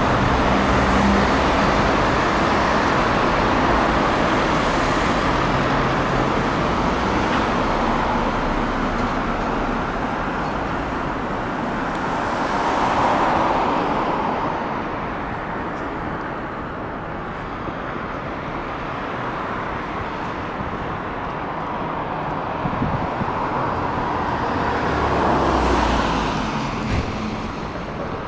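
City street traffic: a steady wash of cars going by, swelling louder as vehicles pass about halfway through and again near the end.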